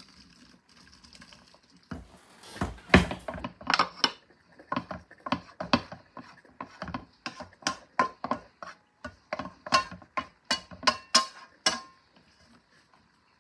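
Wooden spoon knocking and scraping against a skillet as pot pie filling is scraped out into a stoneware crock. It is a quick, irregular run of knocks and scrapes that starts about two seconds in and stops shortly before the end.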